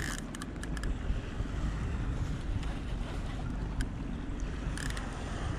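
Wind buffeting the microphone over water lapping against a boat's hull, with a few short clicks and two brief higher-pitched sounds, one near the start and one near the end.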